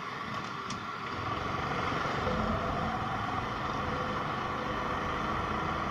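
Motorcycle riding slowly, with steady engine and road noise.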